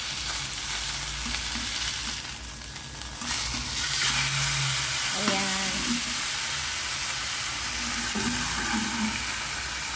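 Chicken breast searing in olive oil in a stainless steel frying pan: a steady sizzle. It thins briefly about two seconds in, while the breast is turned over with a spatula, and comes back louder once the raw side is down in the hot oil.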